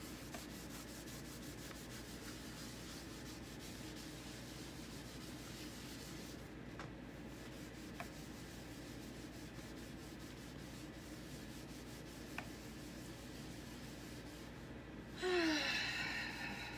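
Hand-held board eraser scrubbing chalk paste off a damp chalkboard: a faint, steady rubbing, with a few small clicks and a brief louder rasp with a falling pitch near the end.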